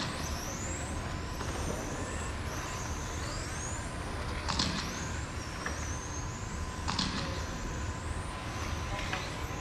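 Electric 1/10-scale RC touring cars racing, their motors whining high and gliding up and down in pitch as they speed up and slow for the corners, with a few short sharp knocks.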